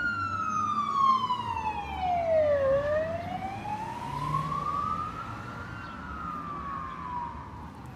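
Police car siren wailing as it passes: one slow sweep falling in pitch, rising again, then starting to fall once more, fading toward the end. A low traffic rumble sits underneath.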